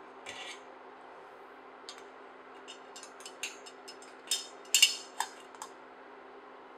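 A glass steamer lid lifted off, then a wire plate gripper clinking against a stainless steel steamer plate and pot as the plate of steamed sweet potato slices is lifted out: a string of sharp metal clinks, loudest about two thirds of the way in, over a steady hum.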